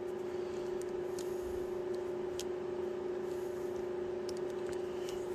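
A steady, single-pitched background hum, with a few faint clicks from hand tools being handled.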